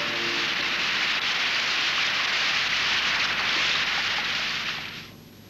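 A steady, even hiss of noise, fading out about five seconds in.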